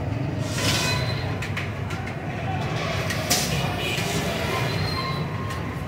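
Samosas deep-frying in a large karahi of hot oil: the oil sizzling and bubbling around them, with a few sharp pops over a steady low rumble.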